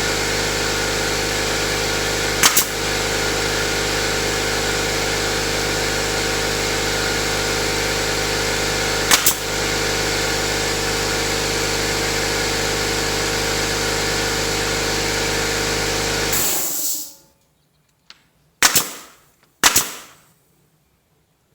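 A motor or engine runs steadily, with two sharp clicks over it, then shuts off about three-quarters of the way through. A few sharp knocks follow in the near silence.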